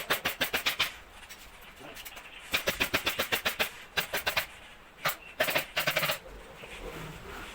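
Pneumatic upholstery staple gun firing in rapid runs of shots, several a second, in four or five bursts with short pauses between.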